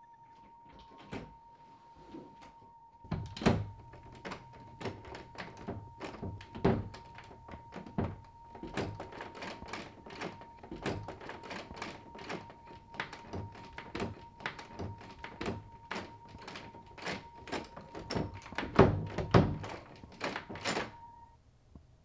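Repeated irregular knocking and banging on a door, at roughly two blows a second, with the heaviest thuds about three seconds in and in a cluster near the end, then stopping suddenly. A steady high ringing tone runs beneath the knocks and cuts off with them.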